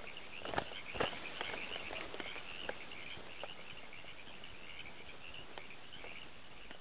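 Insects chirping steadily in a high-pitched chorus, with a few scattered clicks and crackles, the sharpest about half a second and one second in.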